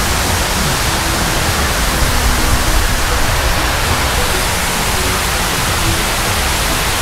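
Steady rush of water sheeting down a large water-wall fountain that recirculates about 11,000 gallons a minute. The sound is loud and even, with no let-up.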